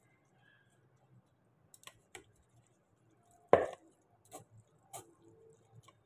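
Metal fork clicking and scraping against a stainless steel mesh strainer while stirring draining rice noodles: a few scattered light clicks and one loud knock about three and a half seconds in.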